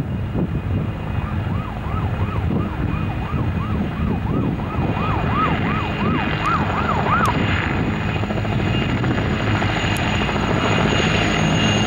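A formation of McDonnell Douglas MD 500 and Mil Mi-2 helicopters flying past, a steady drone of rotors and turbine engines, growing slightly louder toward the end. For several seconds in the middle a quick high warble, two or three rising-and-falling notes a second, sounds over it.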